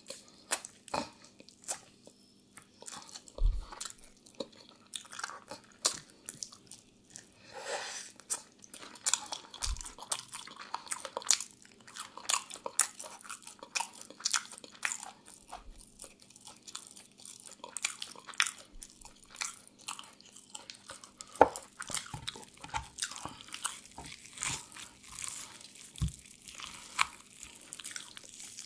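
Close-miked chewing and crunching of crispy grilled chicken, with many sharp crackles. Near the end, the whole grilled chicken is torn apart by hand.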